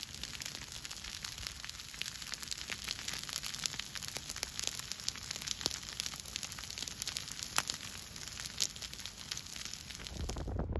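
Dry grass and bush burning in a veld fire: dense, irregular crackling and popping, with sharp cracks over a steady low rumble.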